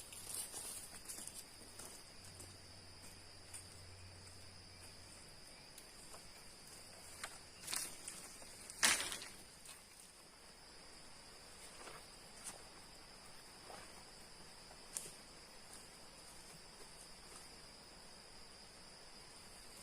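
Steady high, thin chirring of forest insects, with a few scattered clicks and knocks; the loudest knock comes about nine seconds in.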